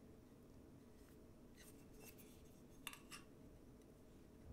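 Near silence, with a few faint light clicks in the middle as a metal plane chip breaker is handled against a hand-held sharpening stone.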